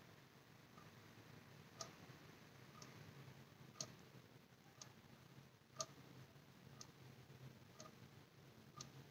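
Faint clock ticking, one tick each second, every other tick a little louder, over a low steady room hum.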